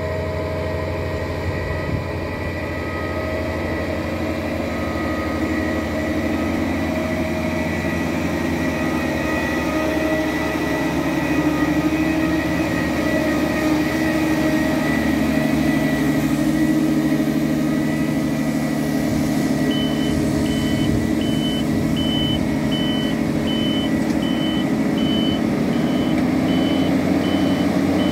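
Dewulf Enduro self-propelled potato harvester running while lifting potatoes: a steady engine and machinery drone with a high whine, slowly growing louder as the machine comes closer. About two-thirds of the way in, a beeper starts sounding about twice a second.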